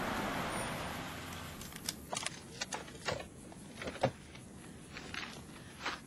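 A rushing, wind-like whoosh fades away over the first second and a half. Then comes a scattering of light clicks and knocks from a stopped car as its doors are opened.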